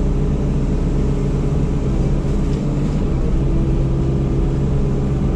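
Yanmar SV100 excavator running its Fecon forestry mulching head: a steady, loud machine drone with a constant low hum, and a faint higher tone joining about three seconds in.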